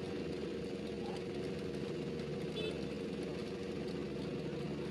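A large passenger ship's diesel engines idling at the pier: a steady low hum with several held tones and no change in pace.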